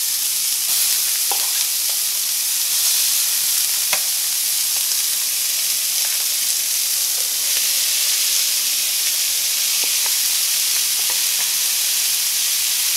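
Diced onion sizzling in hot oil in cast iron skillets, a steady hiss with a few small pops.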